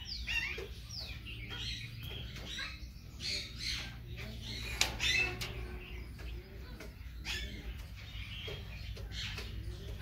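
Many aviary birds chirping and calling over one another in quick, overlapping notes, over a low steady hum, with one sharp click about five seconds in.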